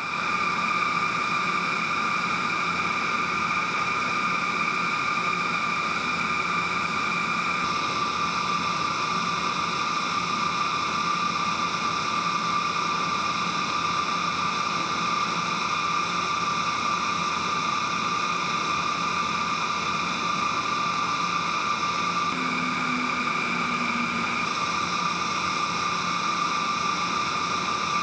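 TIG welding arc running steadily: an even hiss with a constant high-pitched whine through it.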